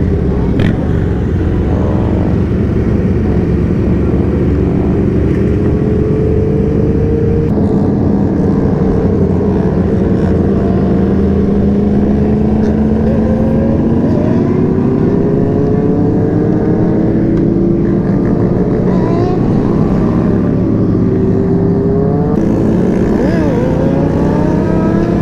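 Motorcycle engines running during a group ride: the sportbike's engine holds a steady cruise with its pitch slowly drifting up and down, while other bikes around it rev, their pitch sweeping up and down in the last few seconds.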